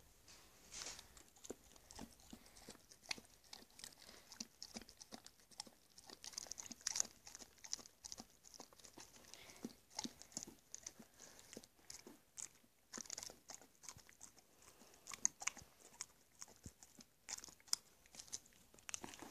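A dog licking and chewing at a squeezed Go-Gurt yogurt tube: faint, irregular wet smacks and clicks of tongue and teeth, some coming in quick clusters.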